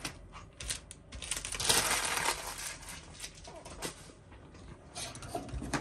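Scattered clicks and, about two seconds in, a short rattling clatter of small hard objects.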